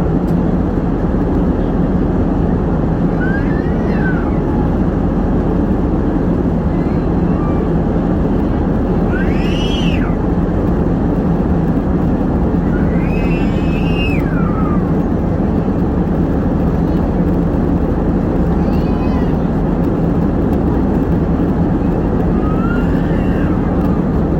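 Airliner cabin noise in flight: a steady, loud rush of engine and airflow. A few faint high calls that rise and fall sound over it every few seconds.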